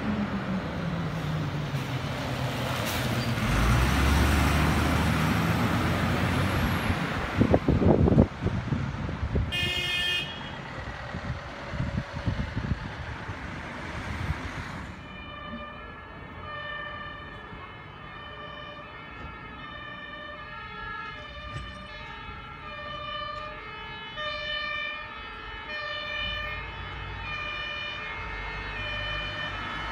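Fire engine's engine running as it comes down the street, its note falling, with road noise, a few heavy thumps about eight seconds in and a short high-pitched tone a little later. After a cut, a quieter two-tone emergency-vehicle siren, the German Martinshorn, alternating evenly between two pitches.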